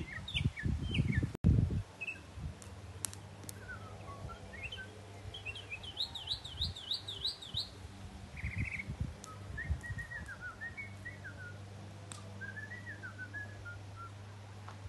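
A songbird singing varied phrases of whistled chirps, with a run of rapid repeated zigzag notes about six seconds in and a short trill after it. Low rumbling thumps on the microphone near the start, over a steady low hum.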